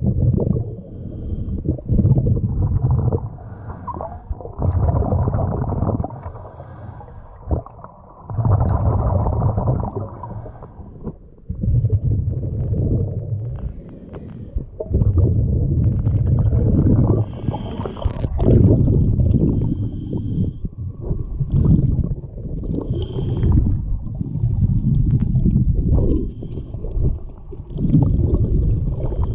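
Muffled underwater recording of a snorkeler breathing through a snorkel. Slow, low rushing breaths swell and fade about every three seconds, with gurgling water.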